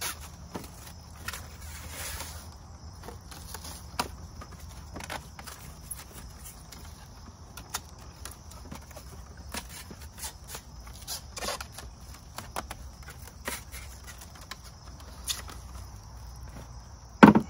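Scattered light clicks and knocks of split firewood being handled and tied into a bundle in a wooden bundling rack, with one louder knock near the end. A steady chorus of crickets runs underneath.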